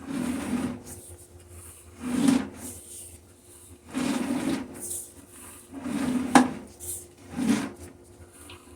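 Sewer inspection camera's push cable being pulled back by hand in repeated rubbing, scraping strokes, about one every one and a half to two seconds, with a sharp click about six seconds in. A faint steady hum runs underneath.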